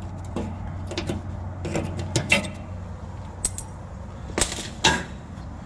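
Scattered light metallic clinks and taps of hand tools working at the brake line retaining clip on a car's front brake, with two sharper clanks a little past four seconds in, over a steady low hum.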